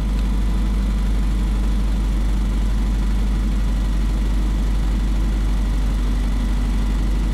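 Vehicle engine idling: a steady low rumble that does not change.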